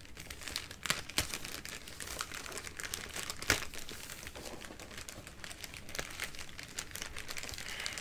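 Plastic poly mailer bag crinkling and rustling as hands pull it open, with a few sharper crackles about a second in and again a few seconds later.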